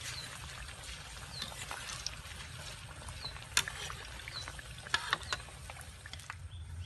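Battered banana pieces deep-frying in a wok of hot oil: steady sizzling and bubbling, with a few sharp clicks a little past the middle.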